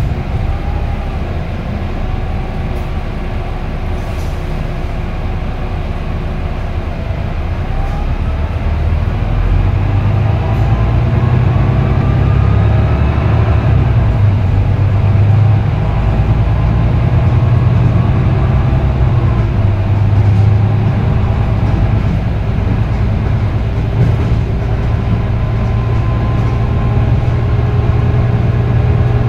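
Volvo B9TL double-decker bus heard from inside the lower-deck cabin: its six-cylinder diesel engine and Voith automatic gearbox make a steady low drone. From about seven seconds in, a whine rises in pitch and the noise grows louder as the bus accelerates, then it holds steady while cruising.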